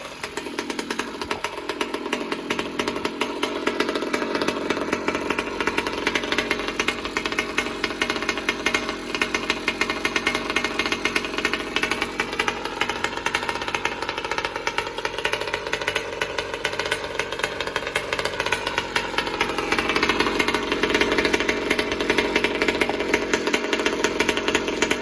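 Small two-stroke engine of a Goped GSR60 scooter (a Trevor Simpson G62 replica) running at high revs through a Flowsystem 60 exhaust, with a rapid, buzzing exhaust note. Its pitch wavers, and the revs lift somewhat about twenty seconds in.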